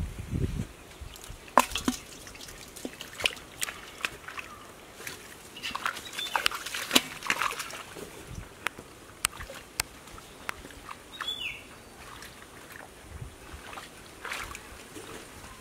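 Hands sloshing and splashing in shallow muddy water, with many short sharp splats and clicks, busiest about six to eight seconds in. A brief rising chirp sounds about eleven seconds in.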